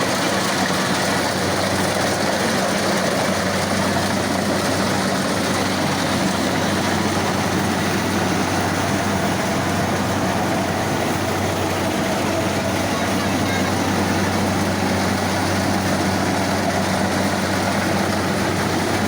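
Combine harvester running steadily while harvesting rice: a constant engine hum under a dense, even mechanical noise.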